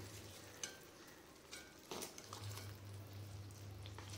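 Faint scrapes and clicks of a metal spatula and ladle against a heavy kadai as thick mint pickle paste is scooped out, over a low steady hum.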